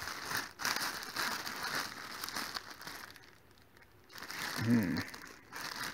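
Clear plastic bag crinkling as hands handle it and rummage through the Lego pieces inside, easing off for a moment partway through. A short hum from a voice near the end.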